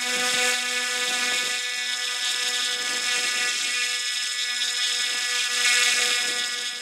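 Electric motor and propeller of a Gemini V-2 FPV plane spinning up with a rising whine, then running steadily at one high pitch.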